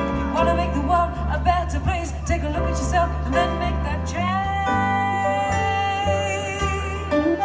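Live band music: a woman singing wavering wordless lines over a Roland stage piano, plucked upright double bass and saxophone. About four and a half seconds in, a long note is held.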